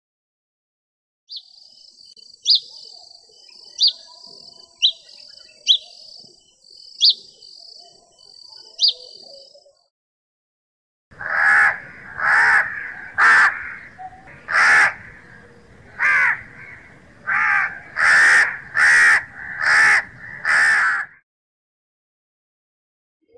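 A small bird's high chirping and whistled notes for several seconds, then after a short pause a crow cawing about ten times in a row, loud and harsh.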